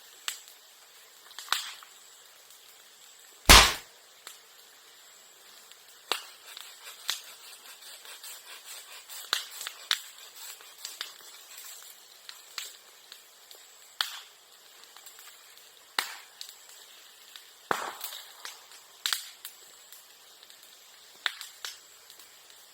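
Bamboo and sasa burning in a bonfire: scattered crackles and sharp pops, with one loud bang about three and a half seconds in and a smaller one near the end, as sealed bamboo sections burst from the heat.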